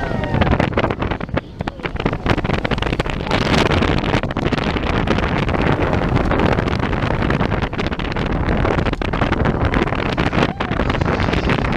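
Seven Dwarfs Mine Train roller coaster cars running fast through curves: a steady rumble and rattle on the track, with wind rushing over the microphone.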